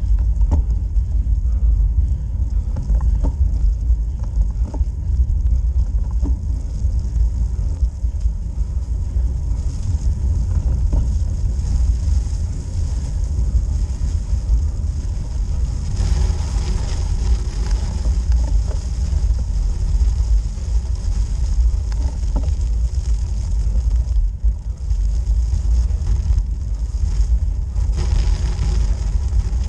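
Wind buffeting an action camera's microphone on a road bike climbing at cycling speed, a steady low rumble, with the hiss of tyres rolling on a snow-dusted road growing louder about ten seconds in.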